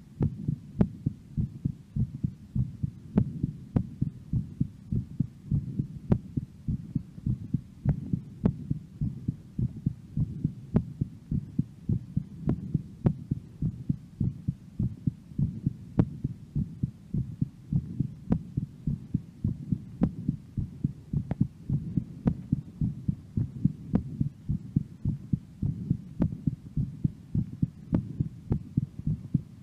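A woman's amplified heartbeat after a workout: steady, low beats repeating evenly, with faint sharp clicks here and there.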